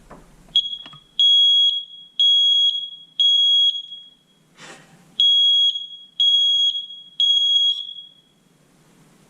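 Battery-powered smoke alarm sounding its test signal, with fresh AA batteries just fitted. A short chirp comes first, then loud, high-pitched beeps about half a second long, one a second, in two groups of three with a pause between them: the standard three-beep alarm pattern, showing the alarm is working.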